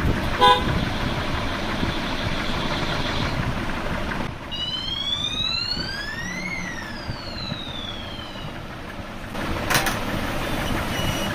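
Street traffic noise: a steady din of passing vehicles with a short horn toot about half a second in. Midway, a whining tone rises in pitch for about two seconds and falls again over the next two, and there is a sharp knock near the end.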